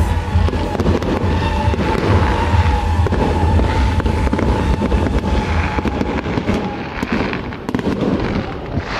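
Fireworks going off: a dense run of bangs and crackles over a low rumble, with a steady tone underneath that fades out near the end.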